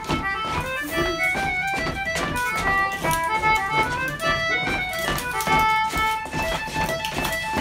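A concertina playing a lively traditional dance tune for rapper sword dancing, with sharp taps sounding alongside the music throughout.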